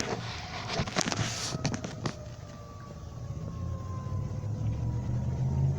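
Outdoor tornado warning siren winding down, its pitch slowly falling, at the end of a test. A few clicks come in the first two seconds, and a passing car's low rumble grows near the end.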